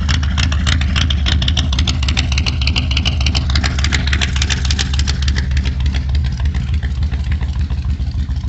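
Car engine idling steadily in the cold after being started, with a rapid, even pulsing from the exhaust that softens near the end.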